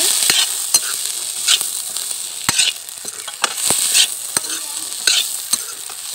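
Green peas frying in a metal kadhai with a steady sizzle, stirred with a large ladle that scrapes and knocks against the pan at an uneven pace, about once or twice a second.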